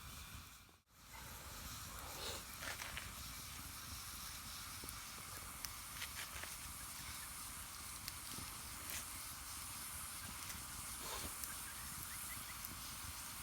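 Steady outdoor hiss with scattered faint short clicks and calls, after a brief dropout in the sound about a second in.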